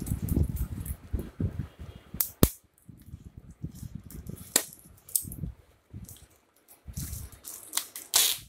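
A parcel being handled and opened by hand: scattered sharp clicks and taps, low bumps, and a short burst of crinkling noise near the end.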